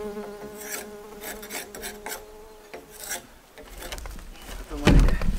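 A flying insect buzzing close by with a steady hum that fades out about two seconds in, over scattered scraping and rubbing. Near the end a loud heavy thud, with low rumbling after it.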